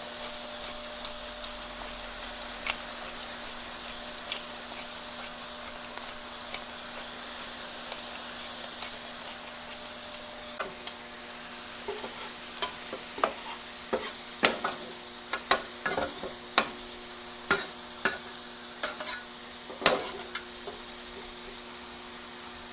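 Bacon and thinly sliced chicken breast sizzling steadily on a flattop griddle. From about halfway on comes a run of sharp metal clicks and scrapes of a utensil on the griddle surface, growing louder near the end.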